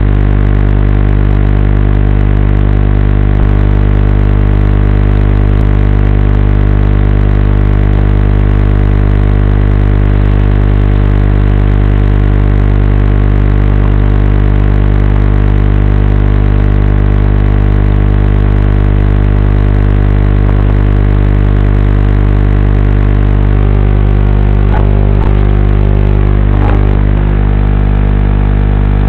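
Loud, steady buzz made of a stack of evenly spaced pitches, coming from the FPV quadcopter as it rests on the ground before take-off. The buzz wavers briefly about three seconds before the end.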